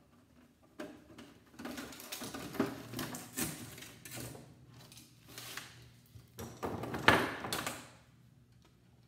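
Irregular clattering and knocking of a circuit board and its cables being pulled loose from a flatscreen TV's sheet-metal back. The loudest knock comes about seven seconds in.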